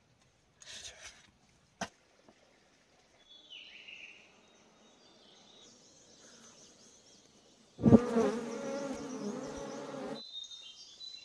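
A flying insect buzzing close by for about two seconds: a steady, pitched hum that starts and stops abruptly, over faint high insect chirring.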